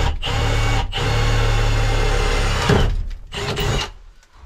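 Cordless drill with a small twist bit running steadily as it bores a pilot hole through the metal back of an old electrical panel. It lets off the trigger briefly twice in the first second, stops a little under three seconds in, then gives one short final burst.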